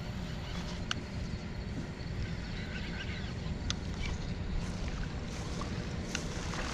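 Steady wind noise on the microphone, with a few faint sharp clicks, one about a second in and one near four seconds.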